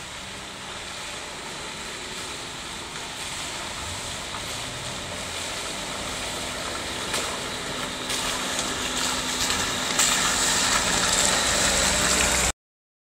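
Land Rover Series III engine running as the vehicle drives toward the listener over a muddy track, growing steadily louder, with a few sharp knocks in the second half. The sound cuts off suddenly near the end.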